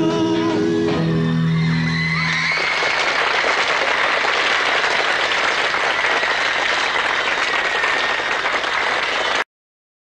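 A rock band's last chord and sung note ring out, then an audience cheers and applauds for several seconds. The sound cuts off suddenly to silence just before the end.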